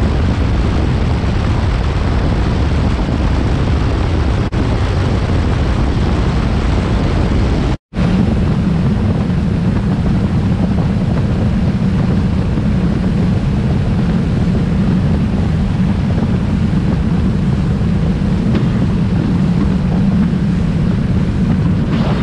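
Boat under way at speed: a steady rush of wind on the microphone and water along the hull over the drone of the 115 hp outboard. The sound breaks off for a moment about eight seconds in and comes back with a stronger low hum.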